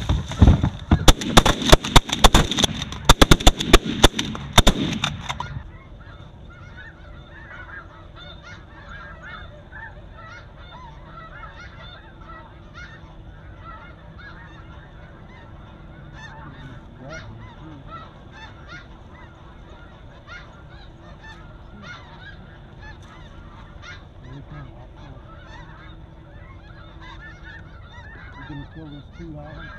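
A rapid volley of shotgun fire from several guns for about five seconds. After it, a steady, much quieter chorus of snow goose calls runs on.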